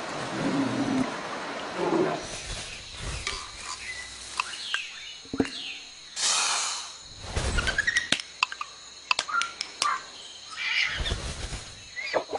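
A string of added sound effects: short chirps, sharp clicks and brief whooshing swells, one loud swell about six seconds in and another near the end.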